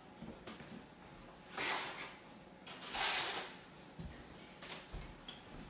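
Movement and handling noise: two short swishes and a few soft low thumps as someone moves around the table.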